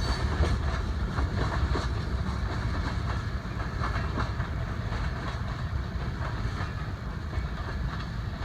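Train cars rolling past on the track: a steady low rumble with the wheels clicking over the rail joints.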